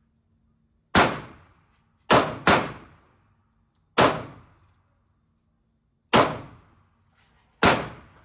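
Six pistol shots fired at an irregular pace, two of them in quick succession, each with a short echoing tail from the indoor range.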